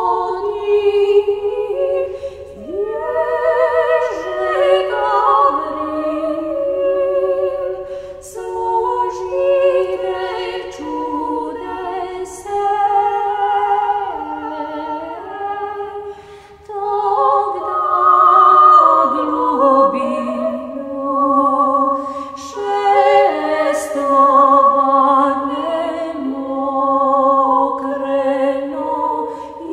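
Mixed a cappella choir singing an Orthodox hymn to the Virgin Mary, several voice parts moving together in harmony with the words audible, dipping briefly about halfway through.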